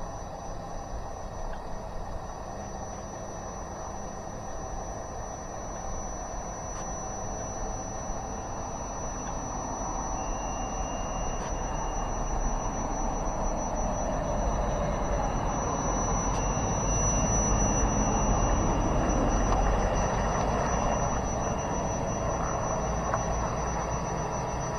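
Radio-controlled amphibious truck running on its electric drive through water, a steady mechanical whir with water churning that swells toward the middle. A thin, steady high whine sits over it.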